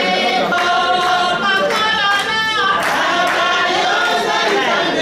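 A group of women singing together in chorus, with long held notes.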